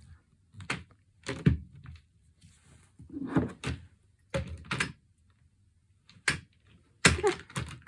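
Small glass nail polish bottles and a plastic spray bottle being dropped into and knocked against a plastic basket by a toddler's hand: a string of irregular light knocks and clacks, coming closer together near the end.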